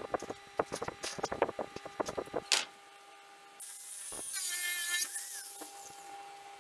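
A quick run of clicks and knocks, then about three and a half seconds in an angle grinder runs against the steel rod ends of a grill grate with a high grinding hiss for a second or so, and winds down.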